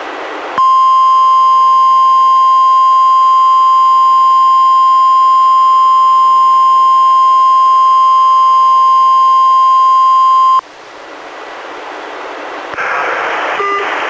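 NOAA Weather Radio warning alarm tone, a single steady high tone held for about ten seconds and cutting off suddenly, played by a weather radio during the weekly test. Radio hiss before and after the tone, and an announcer's voice begins near the end.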